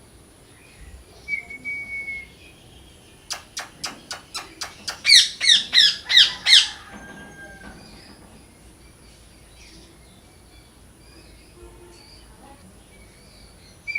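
Parrot calling: a short whistle, then a quick run of about eight sharp clicking calls leading into five loud, harsh squawks, followed by faint scattered chirps.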